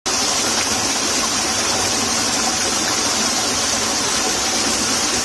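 Steady rush of flowing water in a small ditch, an even hiss with no distinct splashes or other events.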